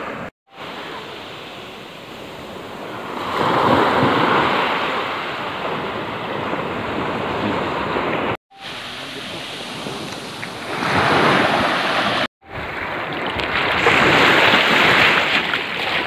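Shallow sea waves breaking and washing up over wet sand at the shoreline, the surf swelling three times. The sound cuts out for a moment three times.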